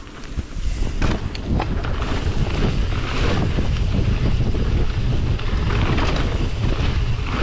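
Wind rushing over a bike-mounted camera's microphone, with tyre noise from a mountain bike riding fast down a dirt trail. A couple of short knocks come about a second in as the bike goes over bumps.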